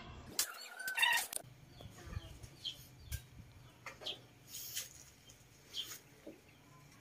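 Scattered short bird calls, one every second or so, over a faint low hum.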